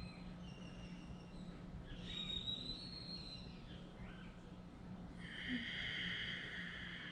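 Faint high-pitched animal calls: short whistles, one rising about two seconds in, then a sustained high buzzing call from about five seconds in. A steady low hum runs underneath.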